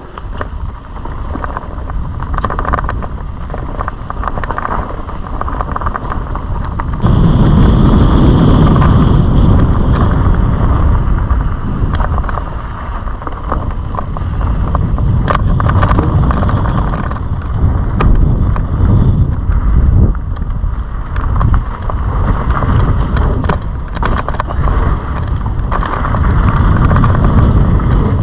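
Mountain bike riding fast down a rocky dirt trail: wind buffeting the camera microphone and tyres rolling over dirt and stones, with scattered sharp knocks and rattles from the bike over bumps. The rumble gets much louder about seven seconds in.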